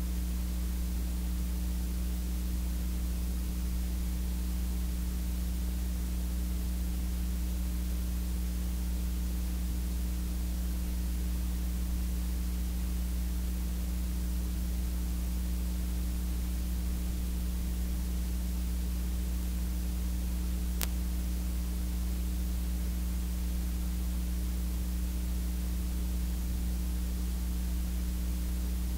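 Steady electrical mains hum and hiss from a sound system, with no voice coming through a dead microphone. A single faint click about two-thirds of the way through.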